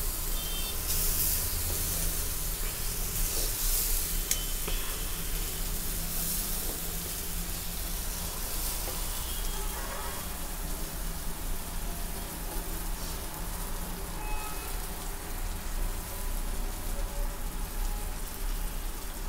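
Oil sizzling in a steel kadhai as soaked poha (flattened rice) goes into the frying onions and peas, with a steel spoon scraping and clinking against the steel plate and pan now and then.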